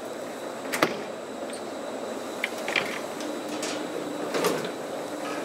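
KONE traction elevator car with its doors shut: a steady hiss and faint hum, broken by a sharp click about a second in and a few lighter clicks and a knock later on.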